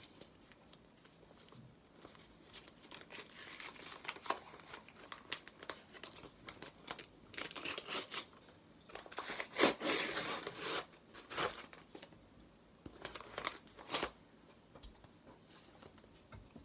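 Hands tearing open a parcel and crinkling its packaging, in irregular rustles and tears that are loudest about ten seconds in, with a sharp click a little later.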